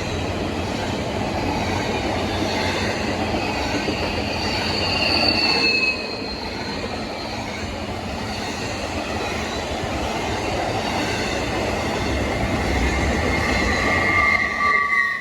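CSX intermodal freight train rolling past with a steady rumble of cars on the rails, and a loud screeching from the wheels on the rail: high squeals that slide slightly down in pitch about five seconds in and return loudest near the end.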